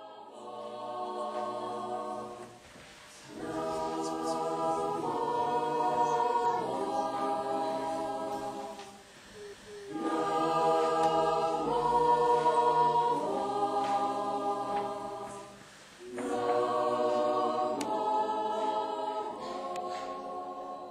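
A choir singing unaccompanied in held chords, in four long phrases with short pauses between them.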